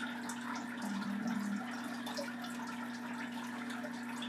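Faint scratching of an oil pastel stroking across paper while shading, over a steady low electrical hum.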